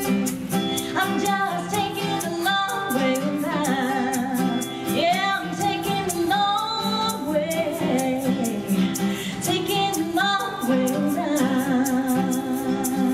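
Woman singing live into a microphone in a country song, holding long notes with vibrato, over a steadily strummed acoustic string accompaniment.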